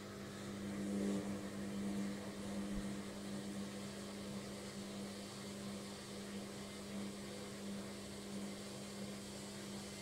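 Logik front-loading washing machine running its intermediate spin: a steady hum at a constant pitch, a little louder in the first few seconds.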